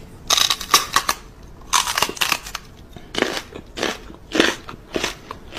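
Crunchy chewing: a string of sharp, crisp crunches, first in two quick clusters, then one about every half second.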